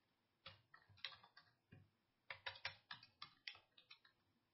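Faint typing on a computer keyboard: two quick runs of keystrokes, the second a little longer.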